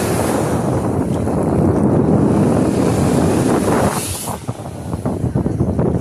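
Wind buffeting the microphone over small waves washing and fizzing onto a sandy shore. There is a brief brighter hiss about four seconds in.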